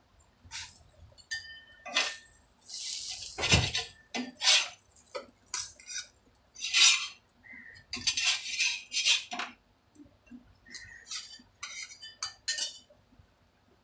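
Ceramic plates and a metal knife clinking and scraping in a string of short, irregular strokes, with a louder knock about three and a half seconds in.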